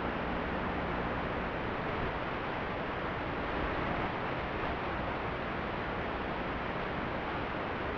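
Steady, even hiss of static with no engine or motor tone in it, as from the empty audio channel of a recorded analog 5.8 GHz FPV video feed.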